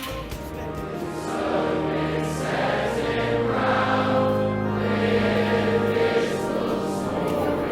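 Choral music: voices holding long sustained chords that swell and change every second or two.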